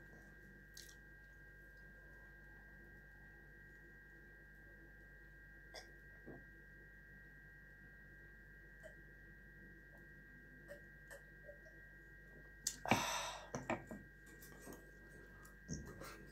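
Quiet room with a faint steady high-pitched whine and low hum, a few soft clicks and taps of eating turkey by hand and handling a glass, and one brief louder noise about 13 seconds in.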